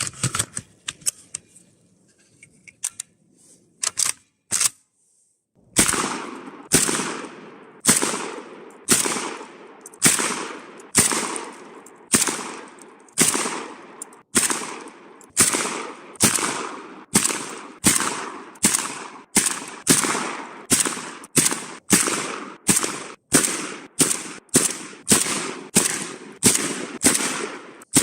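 A few sharp clicks, then a Saiga 12 semi-automatic 12-gauge shotgun fired over and over at a steady pace of about one shot a second, each shot ringing out after it. The shots come a little faster near the end.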